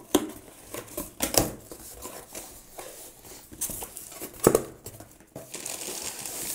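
A cardboard shipping box being opened by hand: its flaps pulled apart and bent back with a few sharp rips and knocks, the loudest about four and a half seconds in. Near the end, the crinkle of the plastic mailer bag inside.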